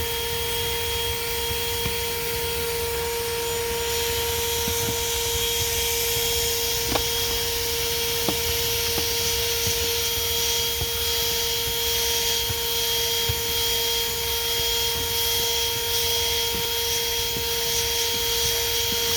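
Corded car vacuum cleaner running with a steady whine and hiss, its agitator brush attachment rubbing across a hard floor mat, with a few sharp clicks.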